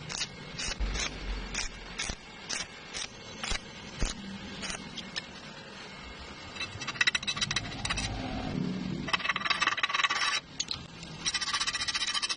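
Taps of metal on metal, about two a second, then three scratchy bursts of a second or so each near the end: slag being chipped off a 6013 stick-weld bead with a chipping hammer, then wire-brushed.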